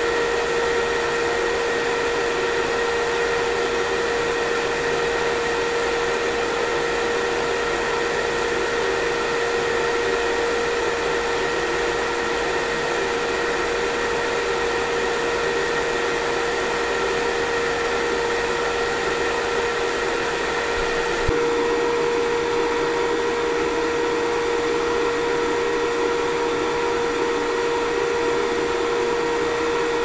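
Axpert-type 3 kVA hybrid inverter running on mains while charging: a steady rush of cooling-fan air with a steady mid-pitched whine and fainter higher tones over it. A brief click about two-thirds of the way through, after which the tones change slightly.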